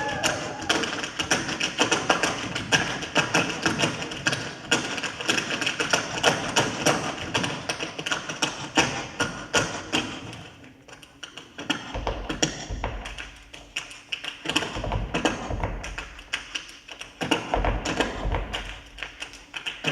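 Percussion made by the dancers themselves, with no music: a fast, dense run of taps and clicks that thins out about halfway, after which deep thuds come in a few times between sparser taps.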